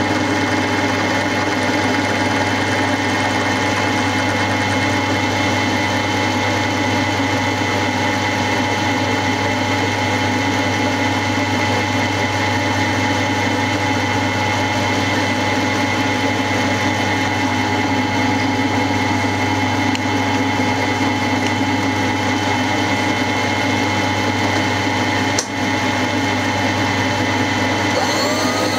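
Milling machine running steadily, its 60-degree dovetail cutter taking a continuous cut along a lathe saddle casting, with a steady hum and whine. There is a very brief dropout near the end.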